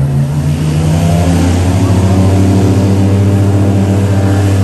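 A large vehicle's engine running close by: a steady low drone that dips slightly in pitch at the start and then holds, with a rushing hiss over it that swells through the middle.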